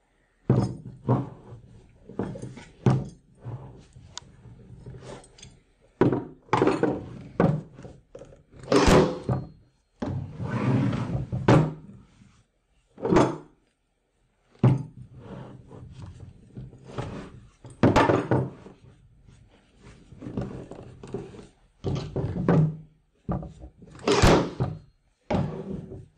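A string of irregular thunks and knocks as canvas is stapled onto a small wooden stretcher frame and the frame is handled and shifted on a wooden desk.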